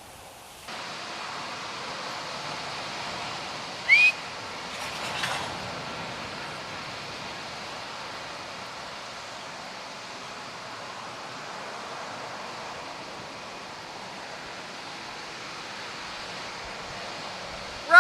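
Steady rush of storm rain and wind. About four seconds in, a short, loud rising chirp cuts through it.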